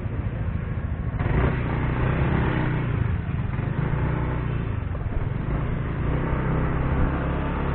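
Yamaha motor scooter's single-cylinder engine running as the scooter rides along, with wind noise on the microphone. The engine and wind noise get louder about a second in as it picks up speed.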